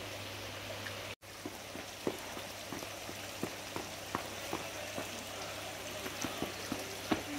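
Steady splashing, trickling water with scattered light ticks and taps, cut off briefly about a second in.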